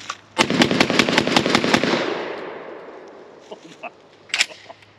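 Benelli M4 12-gauge semi-automatic shotgun fired in a fast string of shots over about a second and a half. The reports fade out over the next second or so. A couple of small clicks follow near the end.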